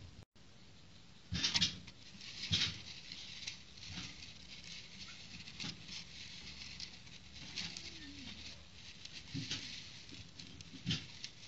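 A disposable plastic plate being turned by hand on a wooden table: scattered scrapes and taps of plastic against wood and fingers, the loudest about one and a half and two and a half seconds in.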